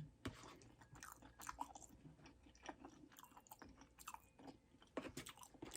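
Faint, close-miked chewing of creamy chicken Alfredo pasta: soft, wet mouth clicks and smacks at an irregular pace.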